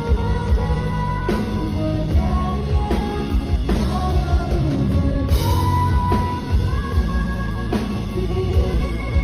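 A woman singing live over a band with drums and bass, the vocal line held and wavering in pitch over a steady beat.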